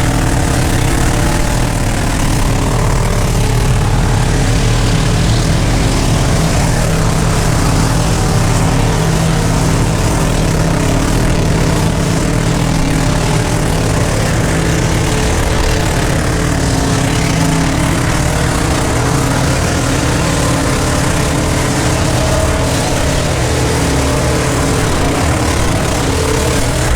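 Loud V8 engine running steadily, its pitch holding level throughout.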